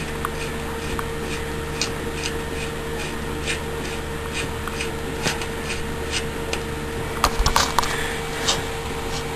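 Light metallic clicks, about two to three a second, from a front axle nut being threaded onto a BMX wheel's axle, with a brief cluster of louder clinks about seven and a half seconds in, over a steady electrical hum.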